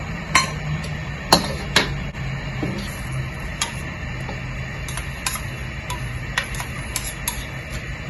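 A metal utensil knocking now and then against a wok of broth as salted egg white is stirred in. There are a dozen or so sharp clinks spread irregularly, the loudest in the first two seconds, over a steady low hum.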